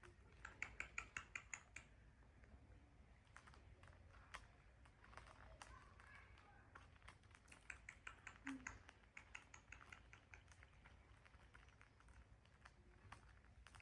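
Faint, quick runs of small clicks, about ten a second, once near the start and again past the middle: a parrot's beak working at a pair of metal earrings.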